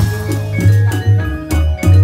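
Indonesian Reog percussion ensemble playing a fast rhythmic piece: drum strokes with ringing pitched gong and metallophone tones over a deep low note that pulses about twice a second.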